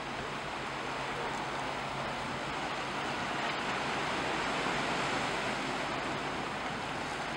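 Steady wash of choppy sea water, with a faint low steady hum underneath.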